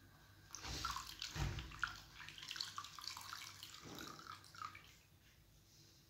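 Water splashing and dripping as a wet cloth is rinsed and wrung out, for about four seconds.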